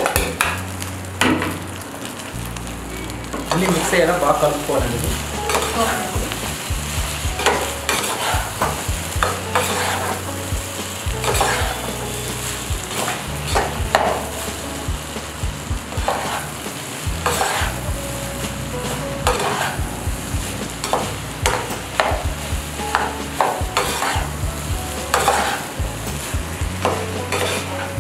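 Steel spoon stirring cooked rice in a pot on the stove, with irregular scrapes and taps of the spoon against the pot over the sizzle of the hot oil and cumin tempering.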